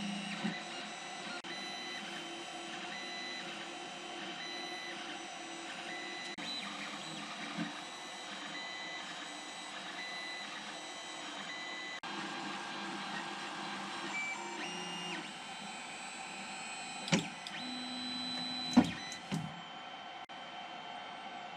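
Creality Ender 3 3D printer running a print: its stepper motors sing in steady tones that jump to new pitches every second or so as the head and bed move. There are a few sharp clicks near the end.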